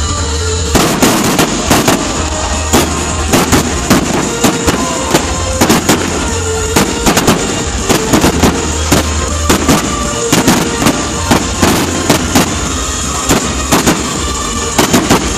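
Fireworks display: aerial shells bursting in a rapid, irregular series of sharp bangs, several a second at times, starting about a second in, over music playing throughout.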